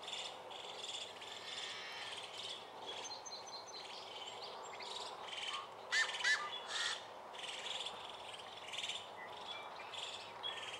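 Birds chirping and calling in repeated short notes, with a louder run of calls about six seconds in, over a faint steady outdoor hiss.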